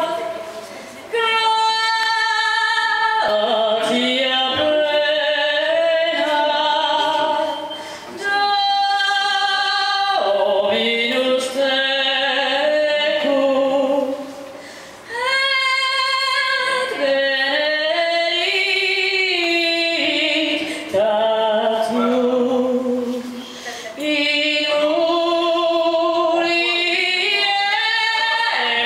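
A woman singing into a handheld microphone, amplified through a PA speaker: long held notes with vibrato, in phrases separated by brief breaths.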